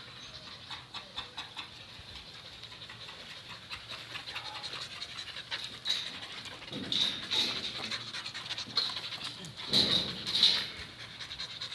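Thai ridgeback dog panting with its mouth open, in soft, repeating breaths. Several louder, short noisy sounds come in the second half, the loudest near the end.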